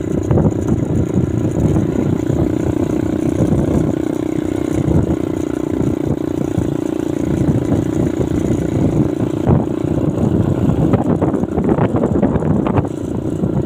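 Motor vehicle running steadily while travelling along: a constant engine drone over a rough, uneven low rumble, with a few rougher patches near the end.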